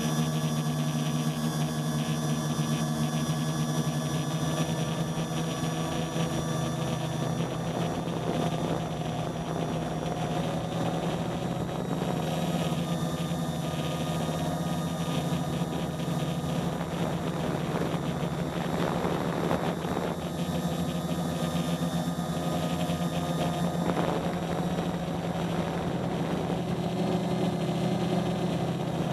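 Quadcopter's four 1000 kV brushless motors and 10×4.5 propellers humming steadily in flight, heard from the craft's own camera, with a rushing noise swelling briefly about two-thirds in.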